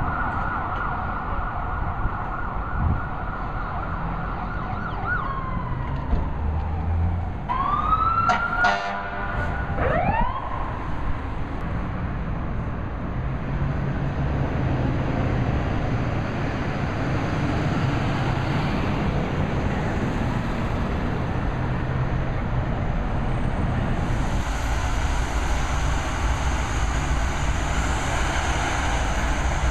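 Emergency vehicle siren holding a high steady tone, then dropping and winding back up with a quick run of rapid sweeps about seven to ten seconds in, after which it gives way to street traffic noise. Near the end the sound changes to a steady engine rumble.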